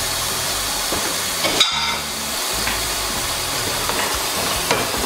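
Beef chuck roast sizzling steadily as it sears in a hot oiled pan, with one short knock about a second and a half in.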